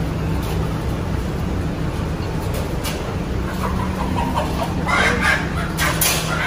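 Caged live chickens clucking, the calls coming more often from about halfway through, over a steady low hum.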